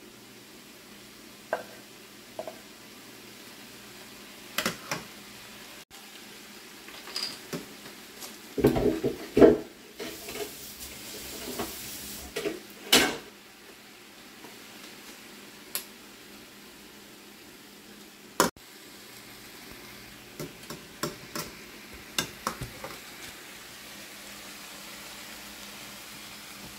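Sisig frying in a pan, a steady faint sizzle, while a utensil stirs it and knocks and scrapes against the pan at irregular intervals. A louder burst of sizzling comes about ten seconds in.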